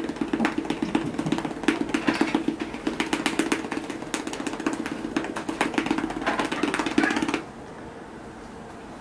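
A hand patting a cat's rump in quick, repeated taps over a steady low drone. Both stop together about seven seconds in.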